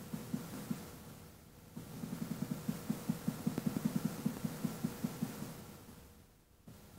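Quick back-and-forth pen strokes hatching shading onto paper, about six dull strokes a second, in a short run at the start and a longer run from about two seconds in to about five seconds.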